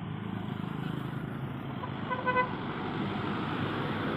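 A bus engine running steadily, with one short horn toot just past halfway.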